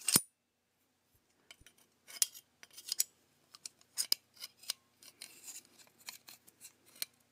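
Bora magnetic-lock combination square being adjusted by hand: its stainless steel rule slides and clicks in the cast zinc head, giving a scattered series of short, light metallic clicks and scrapes.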